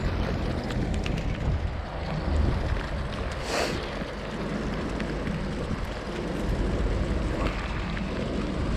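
Wind rumbling on the microphone over a steady hiss of rain, with a few light clicks and knocks as a fishing magnet is pulled from the water and handled.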